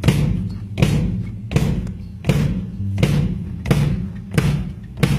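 A drum on a drum kit struck alone at an even pace, about one hit every three-quarters of a second, each hit ringing out before the next. This is a sound check, a single drum being played over and over so its level can be set.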